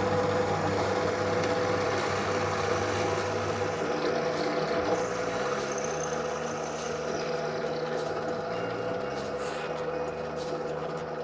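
Benchtop drill press running with a steady hum while its bit drills into a wooden strip.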